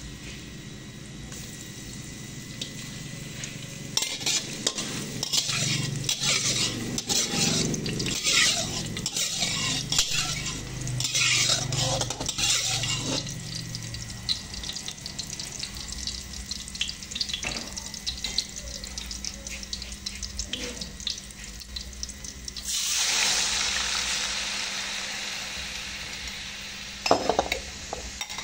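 Chopped garlic sizzling in oil in a metal wok while a metal spatula scrapes and stirs it. About two-thirds of the way through comes a sudden loud burst of sizzling as wet sour bamboo shoots hit the hot pan; it fades gradually, and a few spatula knocks follow near the end.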